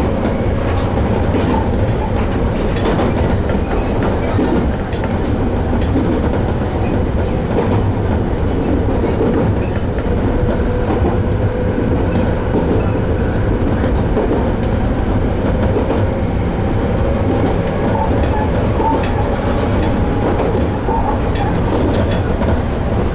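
Toyama Chihō Railway Tateyama Line train running steadily, the wheels clicking over the rail joints.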